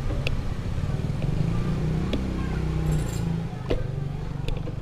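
A motor vehicle engine running close by, a low steady hum that swells slightly mid-way, with a few sharp clicks and rattles from a bicycle riding over a rough lane.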